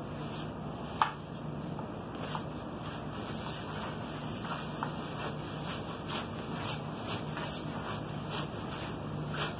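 Rustling and rubbing of synthetic sleeping-bag fabric as a self-inflating sleeping pad is pushed and slid into the bag's pad sleeve, with one sharper knock about a second in.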